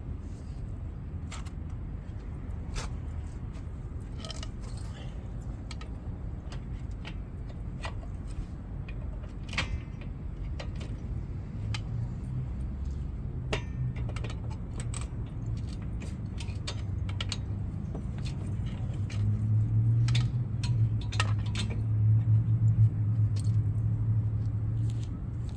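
Scattered light metallic clinks and taps of hand tools and brake parts being handled during a rear brake job, over a steady low hum that swells louder in the last few seconds.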